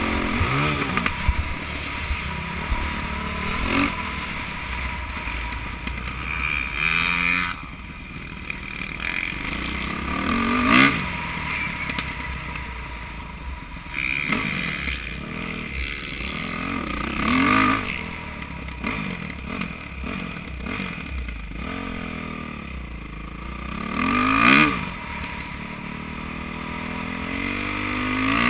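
Dirt bike engine revving up and falling back in a series of short bursts, with lower-revving stretches in between.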